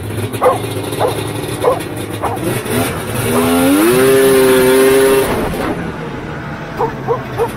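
Polaris Indy 650 snowmobile's piped two-stroke triple engine running low, then revved up about three seconds in, held high for a couple of seconds and let back down: a clean test hit that the owner calls super crisp with zero bog. A dog barks repeatedly before the rev and again near the end.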